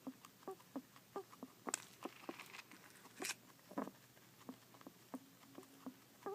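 A pet animal making a strange noise while eating: a faint run of short squeaky clicks, about three a second, with two louder scratchy sounds in the first half.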